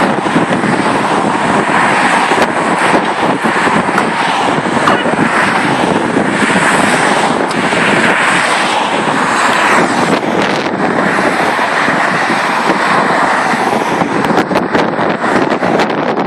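Race team cars passing close by on the road, engine and tyre noise swelling as the nearest car goes by about halfway through, with wind buffeting the microphone.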